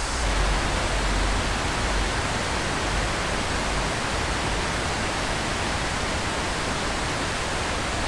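Steady rushing of the Vésubie river through its narrow rocky gorge, an even roar of water with no distinct events.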